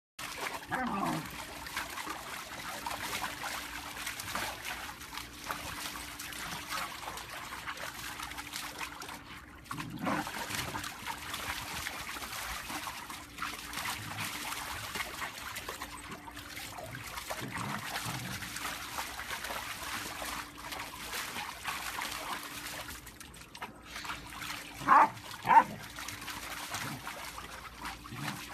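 German Shepherd puppy giving a few falling whines, then two sharp barks in quick succession near the end, over a steady trickling-water hiss.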